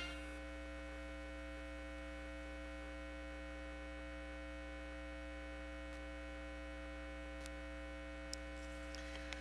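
Steady electrical mains hum, one low tone with evenly spaced overtones, with the last of the anthem's final chord dying away at the very start and a few faint clicks later on.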